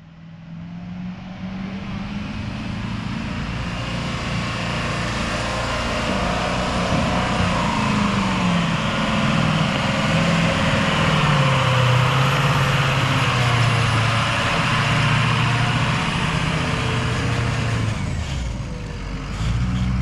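Truck engine pulling hard under load as the truck climbs a slope, getting louder over the first several seconds, its pitch rising and falling with the throttle; it eases off briefly near the end, then picks up again.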